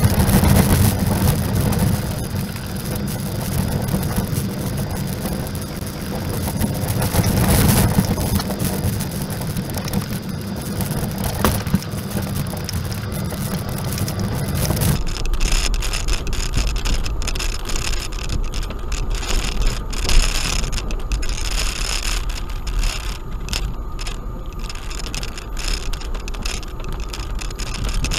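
Suzuki Grand Vitara driving along a rough gravel track: a low engine drone with tyre noise over stones and rattles. About halfway through the sound changes abruptly, the drone dropping away and leaving a deep rumble with scattered clicks and knocks.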